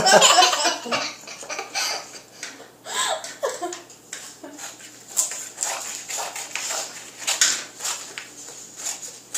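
Small child's scissors snipping through coloured construction paper: a string of short, irregular cuts, coming faster in the second half. A child's giggle at the start and a brief small vocal sound a few seconds in.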